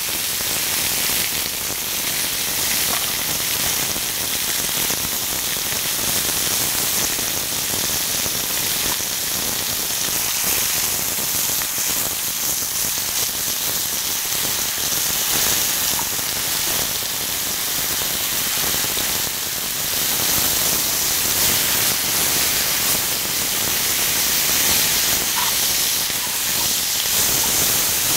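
Sliced pork shoulder sizzling steadily on a hot cast-iron cauldron-lid griddle as it is stir-fried with onion and green onion.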